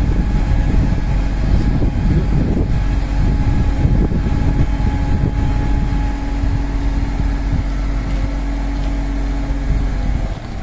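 Engine of a truck-mounted crane running to drive the crane while it lifts a railway wheel part, with a steady whine coming in about three seconds in and the level easing slightly near the end.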